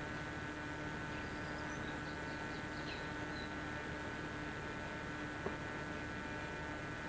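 Steady hiss and electrical hum of an old camcorder's audio track, with a few faint high chirps in the first half and a single click about five and a half seconds in.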